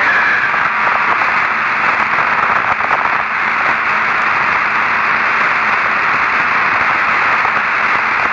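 Steady hiss of radio static on the space shuttle's air-to-ground voice channel, with no voice getting through: the sign of a weak, breaking-up downlink signal.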